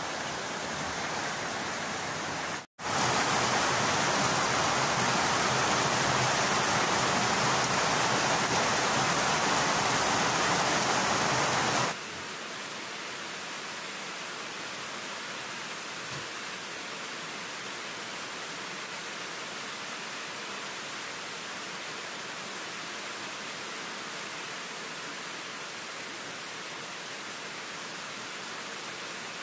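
Steady heavy rain falling on leaves and a wet paved path. The rain noise cuts out for a moment about three seconds in, comes back louder, then drops suddenly to a softer level about twelve seconds in.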